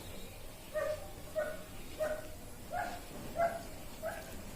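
A dog barking repeatedly in the background: about six short barks, roughly one every two-thirds of a second.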